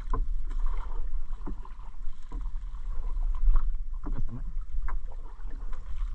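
Water lapping and splashing against the hull of a small outrigger canoe as a gill net is hauled in by hand over the side, with irregular light splashes and knocks and a steady low rumble underneath.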